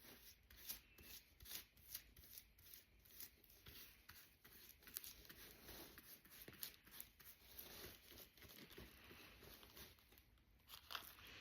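Faint, irregular rustles and small crackles of a thin paper napkin being torn and handled as it is pressed onto a glued fan blade.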